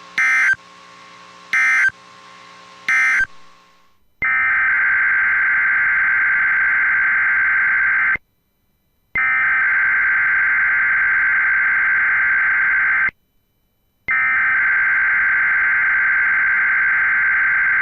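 NOAA Weather Radio SAME digital data bursts, a buzzy two-tone warble. Near the start come three short bursts, the end-of-message code closing the previous test. Then come three long header bursts of about four seconds each, one second apart, which open the next alert.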